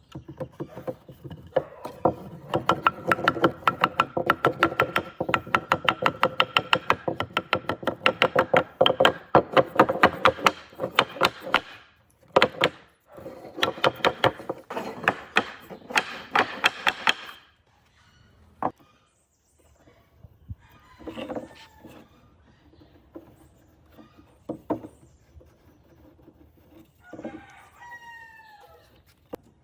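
Rapid, rhythmic knocking on wood, several strikes a second with a ringing tone, that stops suddenly after about seventeen seconds. Then a few scattered bird calls, a chicken or rooster call near the end.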